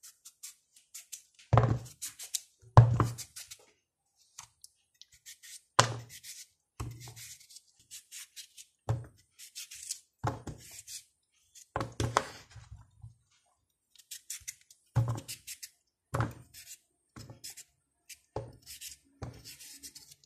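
A knife cutting through a peeled raw potato held in the hand, about a dozen irregularly spaced crisp cuts, each with a dull thunk as the fry strips drop into the basin.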